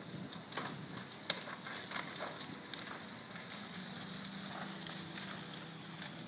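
Structure fire at a gas station and auto repair shop crackling and popping, with one sharp pop about a second in. A low steady hum comes in about halfway through.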